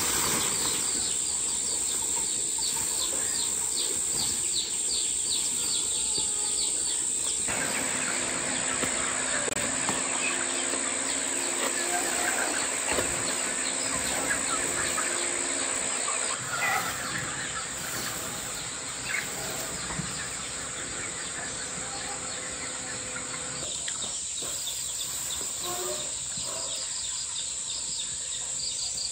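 Many small chicks peeping in short, high chirps, over a steady high-pitched insect drone.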